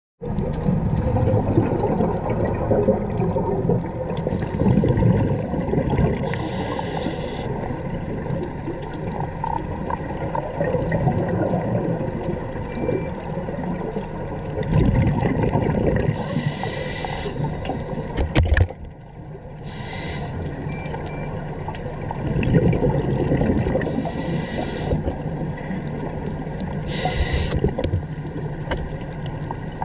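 Underwater sound heard through a camera housing: a steady muffled rumble, with a scuba diver's exhaled regulator bubbles rushing past in several bursts of about a second each.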